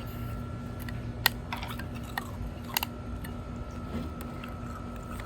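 Metal chisel striking and scraping a block of ice: a few sharp, crunchy clicks, the loudest about a second in and just under three seconds in.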